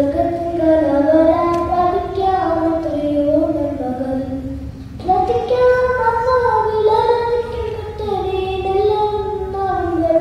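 A boy singing a Malayalam song solo into a microphone, holding long notes, with a short break for breath about five seconds in.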